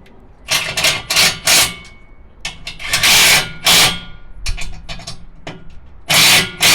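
A power tool, such as a cordless impact wrench or ratchet, run in short bursts while the air tank's mounting bolts are driven: about six bursts in three groups, a pause of about a second between groups.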